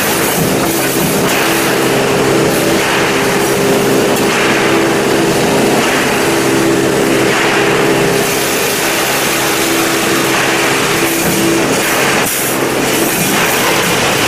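Wire mesh welding machine running: a steady mechanical hum over continuous dense machine noise.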